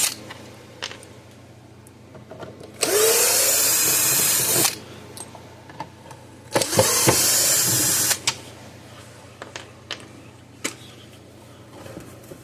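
Cordless drill-driver running in two bursts of about two seconds each, spinning up at the start of each, backing out the screws that hold the fence charger's case shut. Small clicks and taps of handling come between the bursts.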